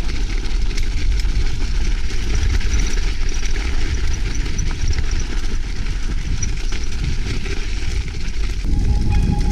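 Strong wind buffeting the bike-mounted camera's microphone, mixed with the rumble of a gravel bike's tyres rolling over snow and ice. Music starts near the end.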